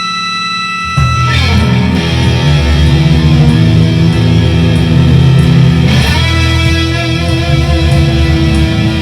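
Fender Stratocaster electric guitar through a Boss Katana 100 amplifier with a distorted tone. A held note rings, then about a second in a loud, low distorted riff comes in and continues.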